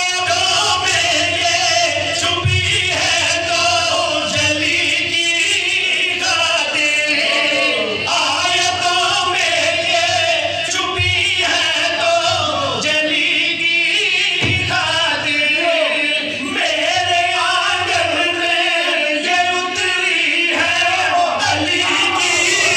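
Men's voices singing a devotional qasida into microphones over a PA. The lead reciter is joined by the men beside him in a loud, sustained chant.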